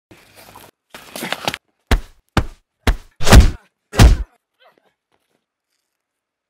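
Fight-scene impact sound effects: five heavy punch-and-kick thuds in quick succession, about half a second apart, the last two the longest and loudest.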